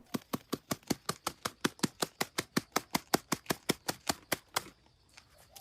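A rapid, even series of sharp clicks or taps, about six a second, that stops near the end.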